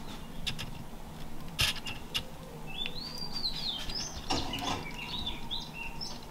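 Small birds chirping in the background: short chirps that rise and fall in pitch, coming thick from about three seconds in. Over a low steady hum there are a few sharp clicks and knocks, the loudest about a second and a half in.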